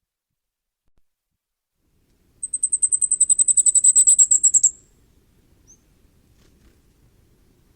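Common firecrest singing: one rapid run of very high, thin notes, about ten a second, lasting roughly two seconds and starting about two and a half seconds in.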